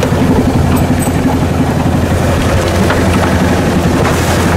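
Small fishing boat's engine running with a steady low drone, with water washing along the hull.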